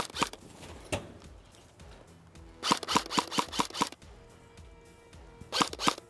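Airsoft rifle firing sharp snapping shots: a few single shots in the first second, then a rapid string of about eight shots around three seconds in, and a short burst of three or four near the end. Background music plays faintly underneath.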